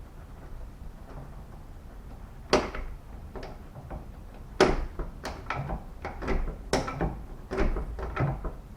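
Large hand rivet gun being worked on a car door handle rivet: a run of irregular sharp metal clicks and clacks, starting about two and a half seconds in, as the handles are squeezed and the tool shifts against the door. The rivet is not setting properly.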